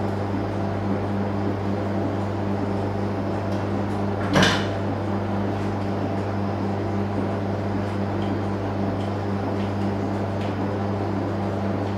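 Steady low machine hum, with one sharp knock about four seconds in.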